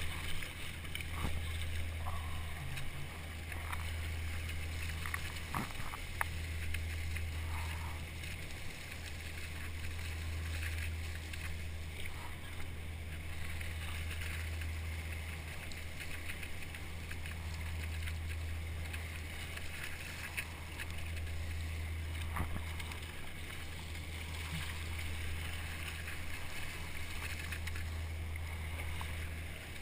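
Churning wake water rushing and splashing around a surfski's hull as it rides a dredge's wake, over a steady low drone.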